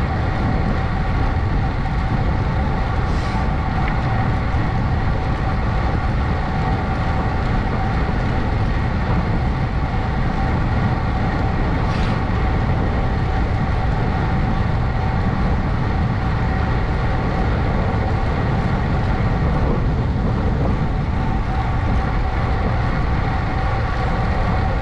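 Wind rushing over the microphone and tyre-on-road noise from a bicycle being ridden along a road, with a steady faint whine mixed in.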